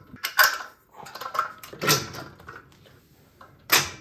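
Knocks and rattles of a metal baby gate and its plastic fittings being handled while pressure bolts are fitted, with louder clatters about half a second in, around two seconds in and near the end.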